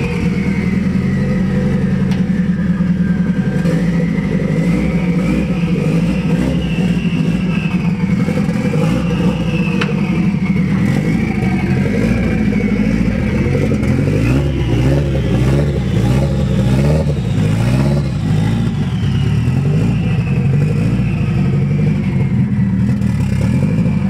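Nissan 240SX (S13) engine running as the car is driven slowly, its pitch wandering up and down with light throttle.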